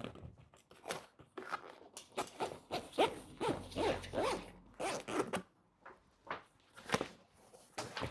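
Fabric zip being pulled along the edge of a bed's netting roof in a quick series of short, rasping strokes, then a few more single pulls near the end.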